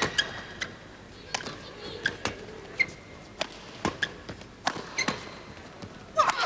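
Badminton racquets striking a shuttlecock back and forth in a fast doubles rally: sharp hits at irregular intervals of about half a second to a second, with short high squeaks of shoes on the court. A louder burst of voices comes near the end.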